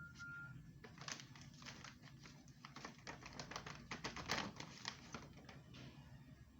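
A rapid, irregular run of light clicks lasting a few seconds, loudest about four seconds in, over a faint low hum.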